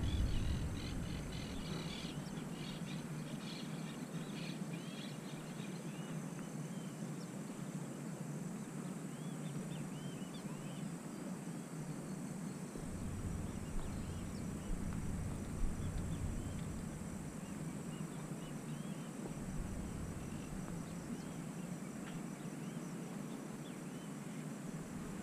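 Faint outdoor ambience: a steady high insect hum, with scattered short bird chirps coming and going and a few small clicks.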